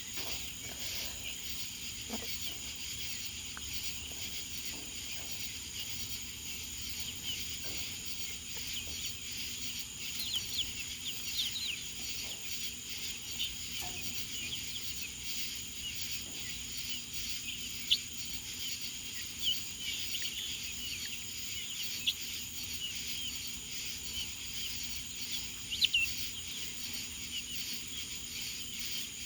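Birds chirping in short scattered calls over a steady high buzz of insects, with a few brief sharper clicks now and then.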